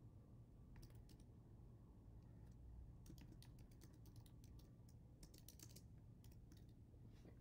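Faint computer keyboard typing: a few keystrokes about a second in, then quick runs of keystrokes from about three to six seconds in.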